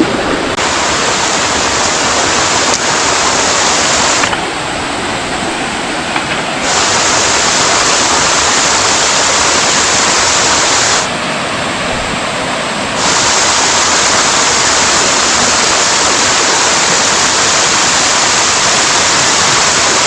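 Rushing water of a mountain valley stream and its small falls: a loud, steady rush. It turns abruptly quieter and duller about four seconds in and again about eleven seconds in, for about two seconds each time.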